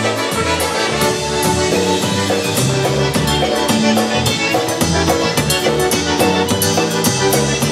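Live band music: piano accordion and concertina carrying the tune over electric bass and drums, with a steady beat.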